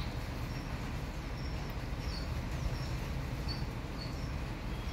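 Small bird giving short, thin, high chirps, repeated at intervals of roughly half a second to a second, over a steady low background noise.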